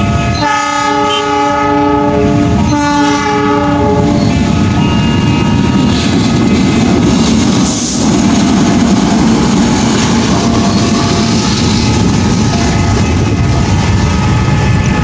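CC206 diesel-electric locomotive sounding its multi-tone air horn in two long blasts, then its diesel engine running steadily as it moves off.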